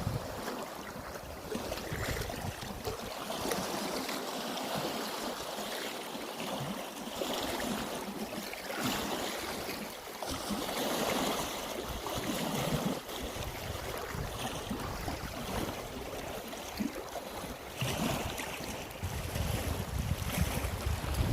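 Sea waves washing against the shore at high tide: a steady noisy wash that swells and eases every few seconds. Wind rumbles on the microphone at the start and again near the end.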